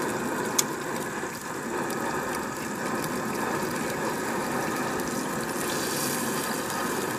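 MSR pressurised liquid-fuel camp stove burning at full flame with a steady, loud rush, bass fillets frying in the pan on top of it. A single sharp click about half a second in.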